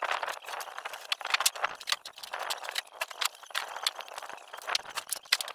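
A dense, irregular clatter of knocks, clicks and scuffing from a board and gear being handled at a car's open boot.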